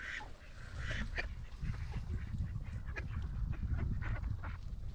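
A flock of mallard ducks quacking and calling, many short calls overlapping, over a steady low rumble.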